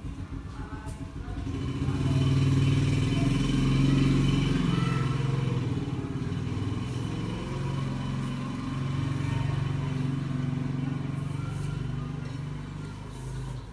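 A motorcycle engine passing close by: its steady hum comes up about two seconds in, is loudest for a few seconds, then fades slowly toward the end.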